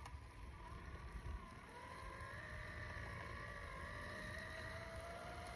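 Faint whine of a Redcat Scout II 1/18-scale RC crawler's brushless electric motor. The whine comes in about a second and a half in and rises slowly as the truck drives, over a low rumble.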